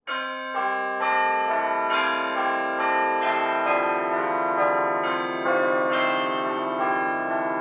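Bells ringing a sequence of notes, a new stroke about every half second, each note ringing on under the next.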